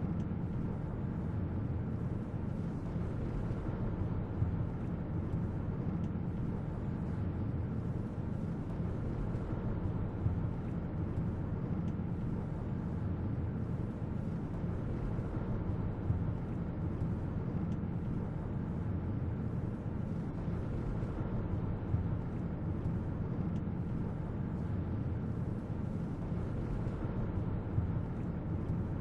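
Steady mountain wind, heard mostly as a low rumbling noise.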